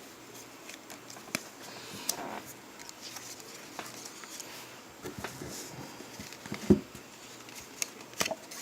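Trading cards and deck-box packaging being handled: scattered light clicks and taps, with a sharper knock about two-thirds of the way through and a few more near the end.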